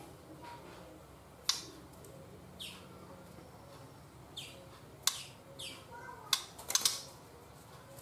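Juvenile white-rumped shama (murai batu) giving short, sharp chirps that fall in pitch, about eight of them, several close together near the end.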